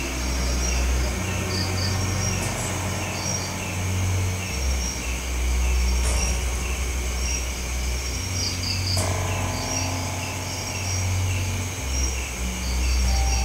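Crickets chirping in a steady, even pulse over a deep low hum that shifts in pitch every second or two, with a few faint clicks.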